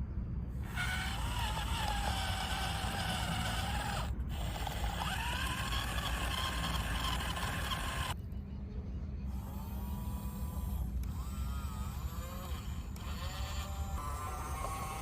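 Remote-control toy JCB excavator's small electric motors and plastic gears whirring with a whine that wavers in pitch, breaking off briefly about 4 s and 8 s in, over a steady low hum.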